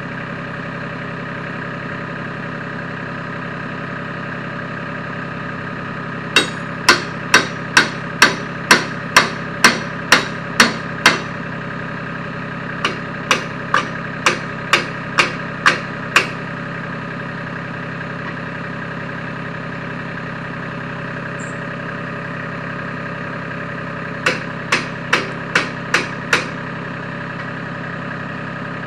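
Three runs of hammer blows, about two a second, the first and longest run of about eleven strikes, then eight, then six, over an engine idling steadily.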